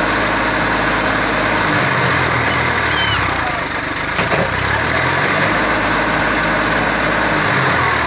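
New Holland 4010 tractor's diesel engine labouring under load as it hauls a trailer up a mound of earth, its speed dipping and recovering a few times.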